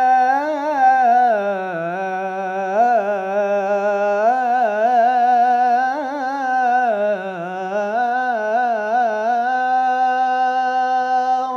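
A boy's solo voice singing Islamic devotional inshad unaccompanied, drawing one vowel out into a long melisma: the pitch winds and trills up and down, dips lower around two and seven seconds in, and settles onto a long held note near the end.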